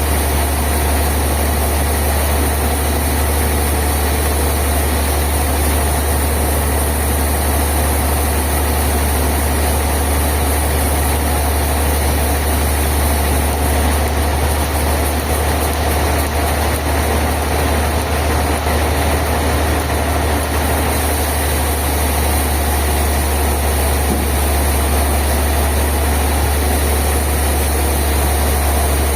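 A sawmill's engine running steadily at one speed, with a strong low hum.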